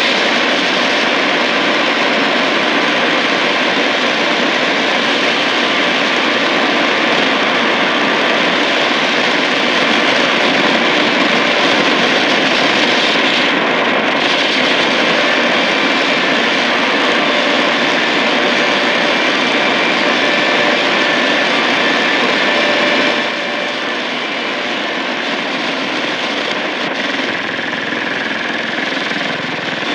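Shortwave static and hiss from a Tecsun PL-880 receiver tuned between stations in the 41-metre band, with faint steady whistles in the noise. The hiss drops a little in level about 23 seconds in.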